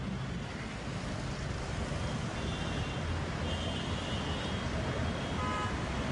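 Busy road traffic: a steady rumble of passing cars and motorbikes, with a few short horn beeps from about two seconds in.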